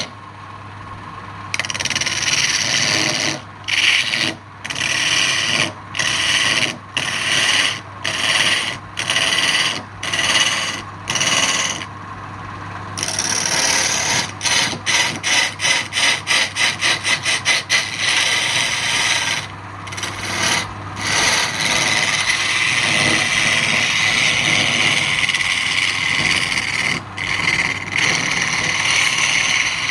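Wood lathe turning, with a tool cutting the spinning wood: a steady motor hum under a loud scraping noise that comes and goes as the tool is put to the wood. A run of quick short strokes comes about halfway, then one long unbroken cut near the end.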